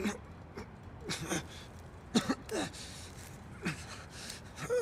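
A man's short pained gasps and grunts, about five brief ones spread across a few seconds, the sounds of someone hurt after a beating.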